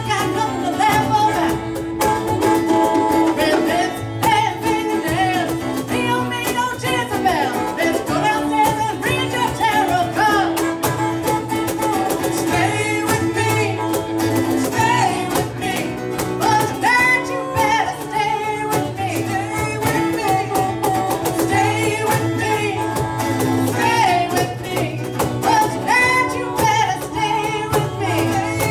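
Live band music: a woman singing over acoustic guitars and a drum kit.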